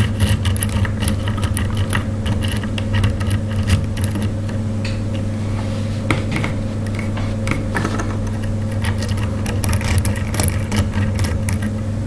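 Lock pick and tension wrench working the pin stacks of a brass padlock during single-pin picking: small scattered clicks and scrapes throughout. Under them runs a steady low hum.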